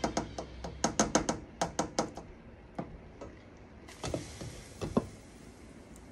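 Kitchenware clattering: a spoon and a glass lid knocking and clinking against a metal soup pot, a quick run of clinks in the first two seconds, then a few scattered knocks.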